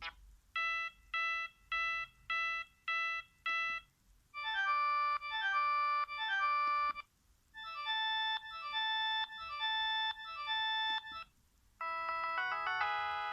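Sony Ericsson S312 mobile phone's built-in electronic sound effects played one after another: six short identical beeps, then a few repeated chime phrases, then a longer melodic alert, and a continuous tune starting near the end.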